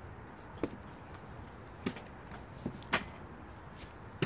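Knife blade stabbing and cutting into a pumpkin's rind: a few sharp knocks about a second apart, the loudest about three seconds in.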